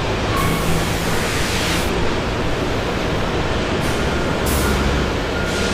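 Steady factory background noise: an even hiss over a low rumble, with no distinct knocks or events.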